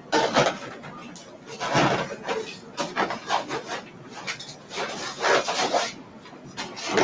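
Zipper on a wheelchair's vinyl-covered seat pad being pulled shut from underneath the seat, in a series of short, noisy strokes.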